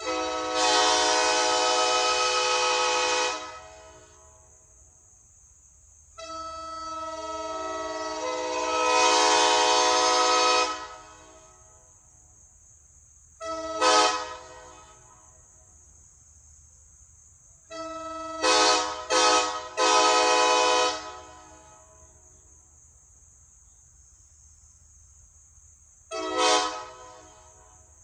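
Nathan 139K K5LA five-chime locomotive air horn sounding a chord in a series of blasts: a long blast of about three seconds, a longer one that swells as it builds, a short toot, then short, short, long, and a short toot near the end.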